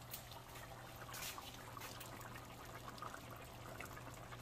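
Fish curry gravy in a pan, stirred and spooned: faint liquid trickling and bubbling with small scattered spoon clicks, over a steady low hum.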